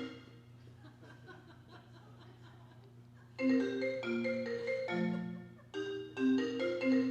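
FaceTime incoming-call ringtone from a laptop, played through church loudspeakers: a short, bright, marimba-like melody that starts about halfway in and plays again right after. A steady low hum runs under it.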